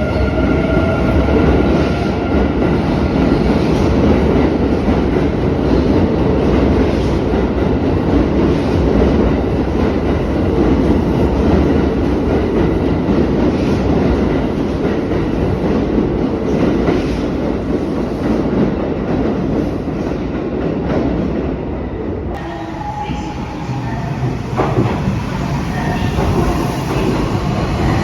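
Electric commuter train running through the station, its wheels clattering on the rails over a steady rumble. About 22 seconds in, the rumble falls away and a few thin tones and clicks remain.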